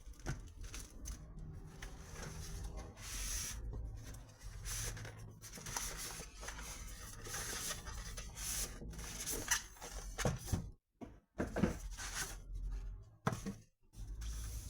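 Cardboard box and packaging being handled in an unboxing: irregular rustling and rubbing, with a few sharper knocks in the latter part.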